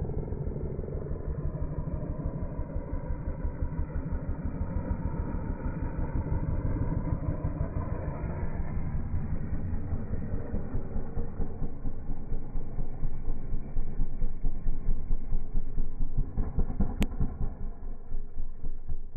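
Motocross dirt bike engine running under throttle as the bike rides by and toward a jump, pulsing and growing louder to a peak about two-thirds of the way in. A single sharp click sounds near the end.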